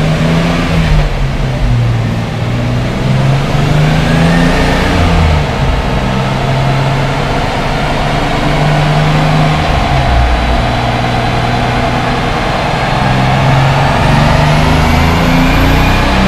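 Toyota Supra's engine running on a chassis dyno, held at a fairly steady speed, then climbing in revs over the last few seconds as a faint high whine rises with it.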